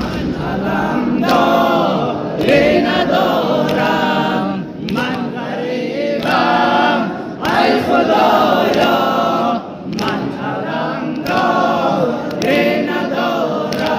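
Afghan nawha, a Shia mourning lament in Persian, sung without instruments in long melodic phrases with short pauses between them.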